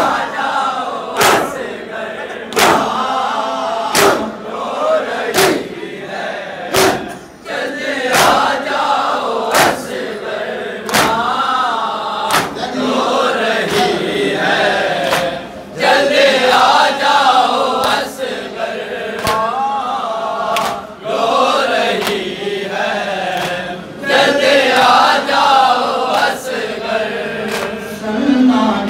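A chorus of men chanting a noha, a Shia lament, in unison behind a lead reciter on a microphone. Sharp slaps land at a steady beat about every one and a half seconds, typical of matam, mourners striking their chests in time with the lament.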